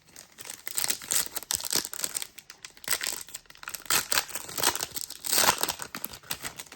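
Trading card booster pack wrapper crinkling and tearing as it is opened by hand, a dense crackle of many small crisp clicks, loudest about five and a half seconds in.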